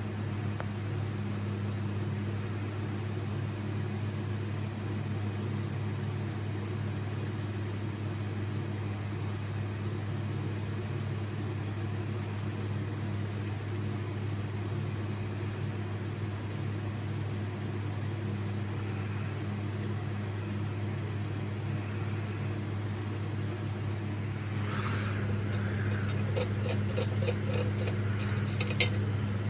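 Ceiling fan running with a steady electric motor hum. Near the end there is a run of quick, sharp clicks.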